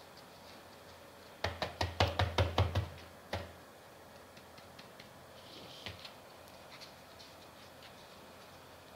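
Hands tapping and patting a small plastic pot filled with sandy soil: a quick run of about ten knocks over a second and a half, then a single knock, followed by faint clicks and rustles as the soil is handled.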